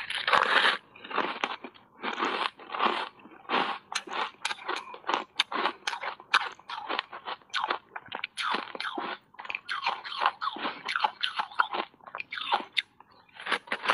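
Block ice heavily coated in matcha powder being bitten and chewed: a quick, irregular run of crunches, several a second.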